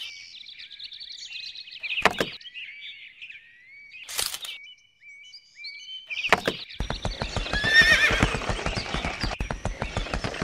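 Horse neighing, loudest in the second half, dubbed in as a sound effect for a toy horse. Before it, a few sharp knocks about every two seconds over faint high chirping.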